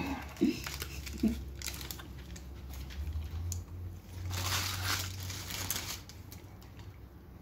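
Paper fast-food wrapper and packaging crinkling and rustling as food is handled, loudest for a couple of seconds about four seconds in, over a low steady hum.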